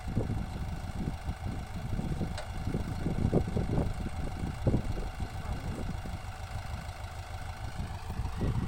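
A backhoe loader's diesel engine runs steadily, a low rumble with irregular low knocks through it.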